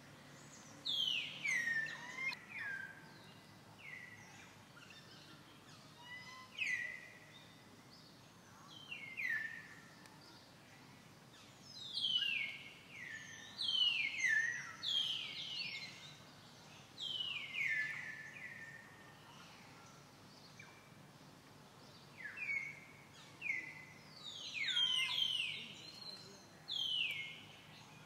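Bird calls: short, high whistled notes that slide steeply downward, given in quick runs of two or three every few seconds over a faint steady background.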